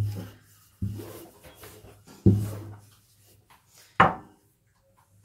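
A wooden rolling pin rolling a thin sheet of baklava dough on a countertop: three strokes, each starting with a knock and fading away, then a sharper wooden knock about four seconds in.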